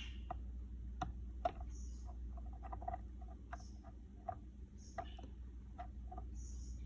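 Faint, irregular small ticks and crackles as a soldering iron heats copper desoldering wick on a wire joint, the flux in the wick crackling as it draws up the melted solder, over a low steady hum.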